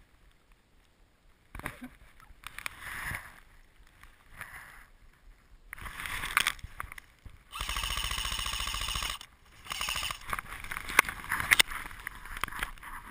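Dry leaves rustling and crunching as someone moves through them. Near the middle an airsoft M4 rifle fires one rapid, even full-auto burst of about a second and a half.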